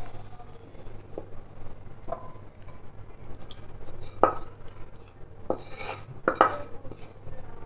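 Wooden spatula knocking against a ceramic serving bowl and the cooking pan as cooked fish curry is spooned out: about seven separate clinks with a brief ring, the loudest about four seconds in and two close together near the end.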